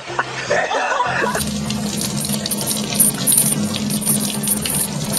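Water running steadily from a tap, a dense hiss with a low steady hum beneath it, starting about a second in.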